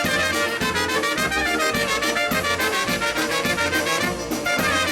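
Brass band playing an upbeat instrumental introduction, trumpets and trombones over a steady bass beat.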